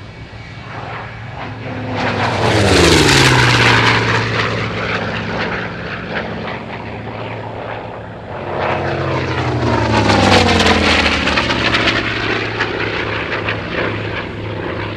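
Piston-engined WWII naval propeller fighter flying past twice, its engine drone swelling and then dropping in pitch as it goes by, loudest about three seconds in and again about ten seconds in.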